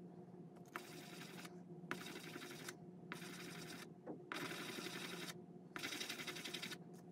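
Resin d20 die rubbed face-down on wet white polishing paper, the final polishing stage that also clears excess ink from the faces. Five short bursts of fine scratchy rubbing, each under a second, with brief pauses between as the die is lifted and turned to the next face.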